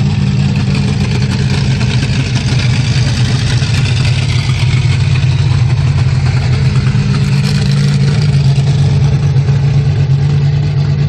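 Bigfoot monster truck's engine running in a steady low rumble as the truck drives past, a little louder about halfway through.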